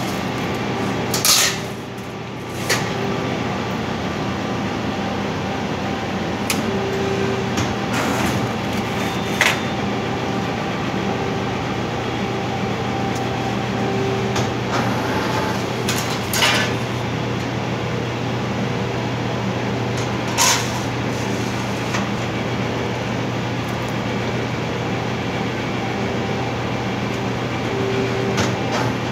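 Press brake running with a steady motor hum while steel sheet is handled and bent in it, with several sharp metallic clanks as the sheet is pushed against the tooling and the bend is made.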